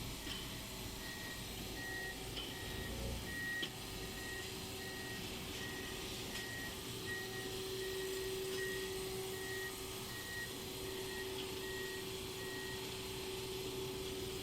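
An electronic beeper sounding a short high beep about twice a second, stopping near the end, over a steady low hum.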